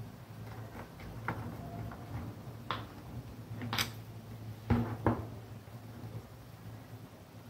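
Small plastic clicks and taps as hands handle control wires and plastic contactor and relay bodies during wiring, about five in all, the loudest a little under five seconds in, over a low steady hum.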